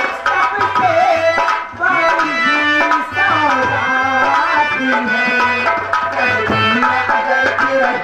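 Live Indian folk theatre music: a hand drum keeps a steady beat under held drone-like tones and a wandering melody line, with a brief dip a little under two seconds in.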